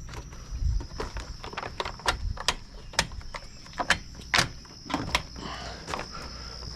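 Jeep Gladiator grille being pressed back onto the front frame, its clips snapping into place: a string of sharp, irregular plastic clicks and knocks, the loudest about four and a half seconds in.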